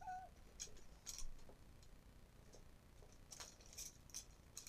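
Faint, scattered small clicks and light clinks of keyrings being handled, with near quiet between them.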